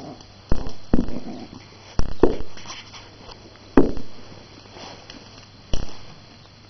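Jack Russell terrier puppy growling and yapping in rough play, in about six short, sharp bursts.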